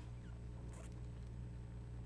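Quiet studio room tone with a steady low electrical hum, and faint small handling sounds of chopsticks and a plastic sauce cup, including a brief faint squeak and a soft click.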